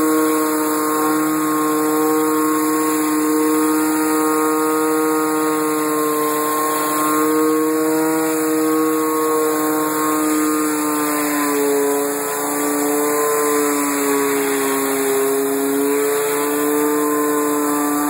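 Gas-engine pressure washer running steadily under load, with water hissing from the spinning surface cleaner on concrete. The engine pitch sags slightly for a few seconds past the middle, then recovers.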